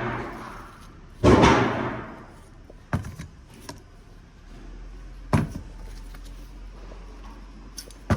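A few sharp knocks and slams: the loudest about a second in, with a short ringing tail, then two shorter ones about three and five seconds in, and a few light clicks between them.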